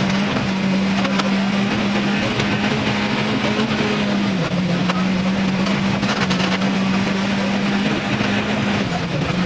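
Rally car engine held at high, steady revs over a constant rush of noise, its pitch dipping slightly about halfway through and again near the end.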